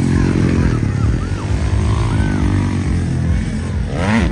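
Motocross dirt bike engines revving and changing pitch as the bikes ride the track, one passing close. About four seconds in, one engine's revs climb sharply.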